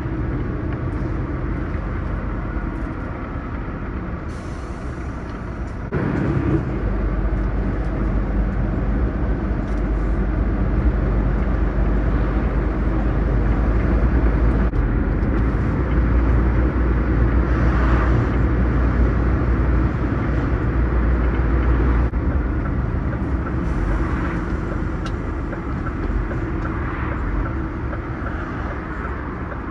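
Scania truck driving, its engine and tyres making a steady low rumble that gets louder about six seconds in.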